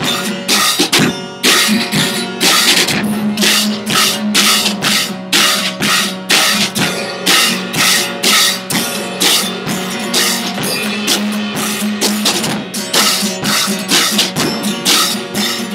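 Acoustic drum kit played in a steady rock beat, with cymbal and snare strikes about twice a second over the bass drum. Held low notes from another instrument sound underneath and change pitch a few times.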